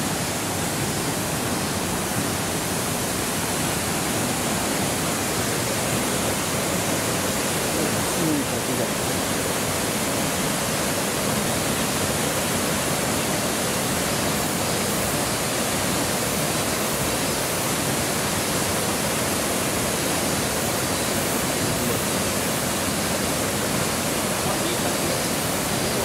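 Waterfall water rushing: a steady, even roar with no breaks.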